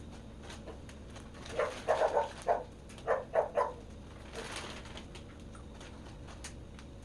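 An animal calling in a quick series of about seven short calls, with a fainter call a moment later.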